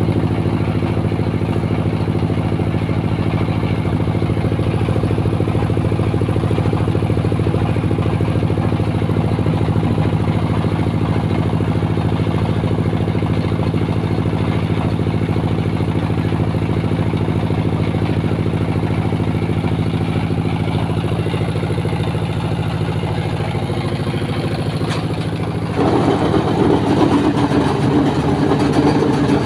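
Concrete-block (batako) press machine running with a steady mechanical hum. About 26 seconds in it turns louder and rougher as the mould is pressed down with the long hand lever.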